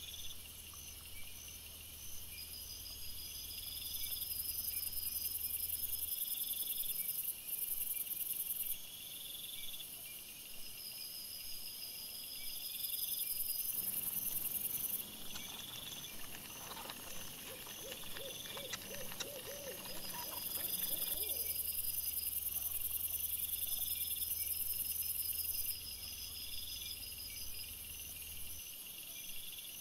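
Night insects such as crickets chirping in steady repeating high trills. About halfway through, a lower, rough, wavering animal call rises for a few seconds and fades.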